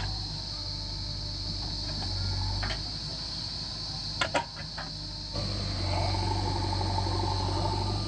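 JCB 3DX backhoe loader's diesel engine running steadily while the backhoe arm digs soil, with a quick run of sharp metallic clanks about four seconds in. From a little past five seconds the engine sound turns louder and steadier.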